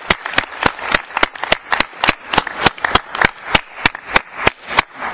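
Applause in an assembly hall: a fairly small group clapping, the single claps distinct at about four to five a second, dying away near the end.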